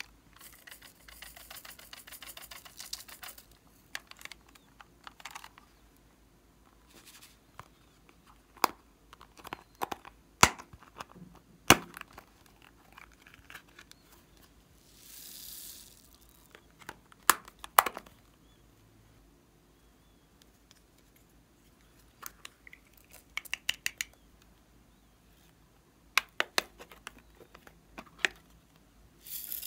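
Small plastic slime-add-in containers being handled over a glass dish: scattered sharp clicks and taps of the plastic cases and lids. About halfway there is a brief soft hiss of foam beads pouring into the dish.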